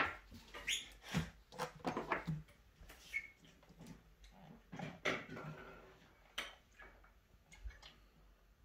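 Scattered light clicks and knocks of a plastic soy sauce bottle, its cap and a small shot glass being handled while soy sauce is measured out.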